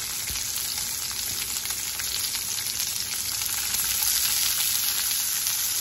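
Sliced onions and green bell pepper sizzling in hot avocado oil in a stainless steel skillet, stirred with a metal fork. The sizzle grows a little louder about four seconds in.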